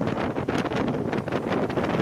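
Wind rushing over the microphone of a rigid hull inflatable boat under way at speed, fluttering rapidly, with the boat's motor and water noise beneath it.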